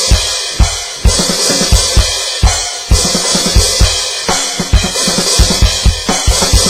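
Electronic drum kit (Alesis DM10 module with Alesis Nitro pads) played in a steady groove: kick drum, snare and crash cymbals, with the bass drum strokes coming faster near the end.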